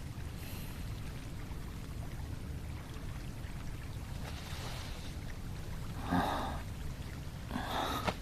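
Two short breathy exhalations from a person, about six and nearly eight seconds in, over a low steady background hum.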